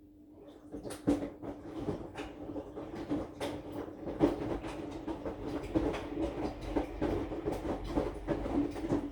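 Aqua AQW-DX12M drum washing machine tumbling a load of about 7 kg of clothes in its wash cycle: irregular thuds and clicks of laundry dropping in the turning drum over a steady motor hum, heard through the machine's cabinet. The tumbling starts about half a second in and stops suddenly near the end.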